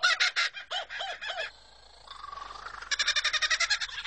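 Kookaburra laughing call: rapid rolling chuckles, a few rising-and-falling hoots about a second in, a short lull, then the fast chuckling starts up again.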